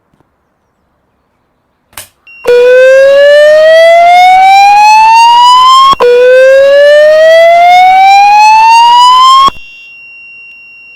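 Fire alarm voice-evacuation system sounding the slow-whoop evacuation tone: two loud rising sweeps of about three and a half seconds each, beginning about two and a half seconds in after a click. The whoops cut off suddenly, leaving a much fainter steady high tone.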